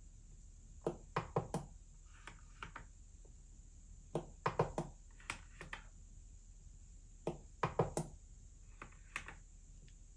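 Soft clicks and knocks of hands working controls: the push-encoder and buttons of a Wolfmix W1 MK2 lighting controller and the plastic faders of an Akai APC Mini MK2 MIDI controller. They come in small clusters of two or three every second or two.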